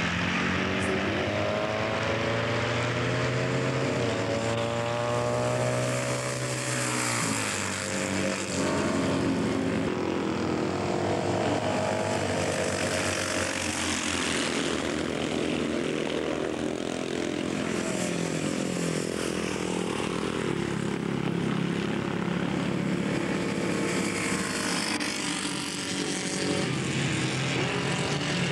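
Classic racing motorcycle engines running hard, their pitch rising and falling as the bikes accelerate, change gear and pass, with more than one engine heard at once.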